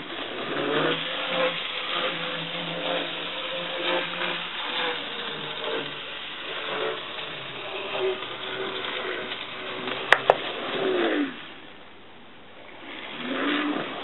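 Small electric motor of a Graham Farish N gauge 4-4-0 model locomotive whining as it runs, with a light rattle of wheels on track. The whine sinks slowly, falls away about eleven seconds in, and rises again near the end. Two sharp clicks come just before the whine falls away.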